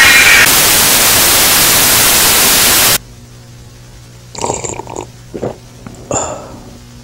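Loud burst of analogue TV static, an even hiss that cuts off suddenly about three seconds in, used as a VHS glitch transition. A few brief, much quieter sounds follow near the end.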